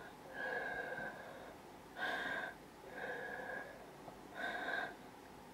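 A man breathing audibly through his nose close to the microphone: four short breaths about a second apart, in and out in turn.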